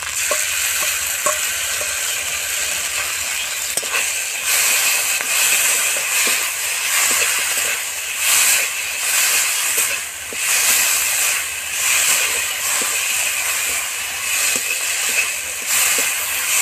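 Shrimp and onions frying in mustard oil in a karahi, with a wet paste of ground pointed-gourd seeds just added, sizzling steadily as a spatula stirs and scrapes the pan. The sizzle swells louder several times as the mixture is turned.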